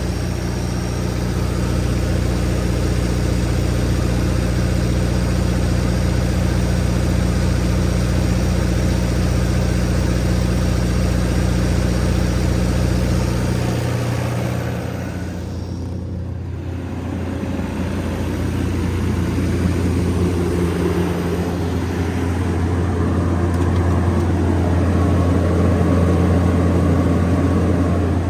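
Isuzu 4LE1 four-cylinder diesel engine of an MTU 20 kW generator set running steadily at constant speed, a deep even hum. About halfway through, its deepest hum drops away and the sound dips briefly before going on with a slightly different tone.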